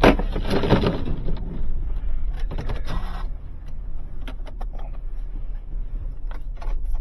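A vehicle engine running steadily at a low rumble, with scattered metallic knocks and clatter.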